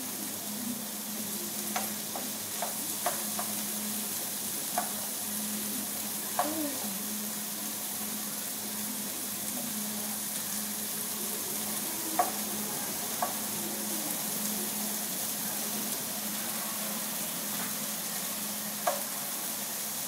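Food sizzling in a frying pan while a wooden spatula stirs it, with occasional sharp taps of the spatula against the pan.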